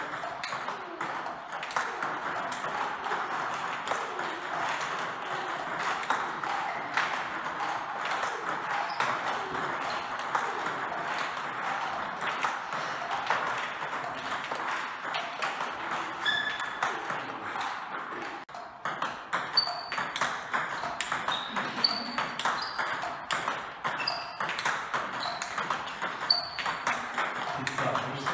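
Table tennis multiball drill: plastic ping-pong balls clicking off paddles and the table in a rapid, nearly continuous stream of hits. In the last third the hits become sharper and more widely spaced.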